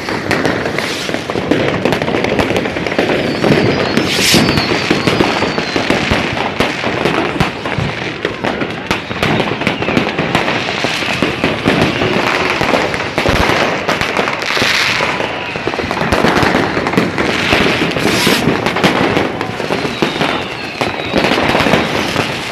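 Many fireworks and firecrackers going off all around: a constant, dense crackle of bangs. A wavering firework whistle comes a few seconds in.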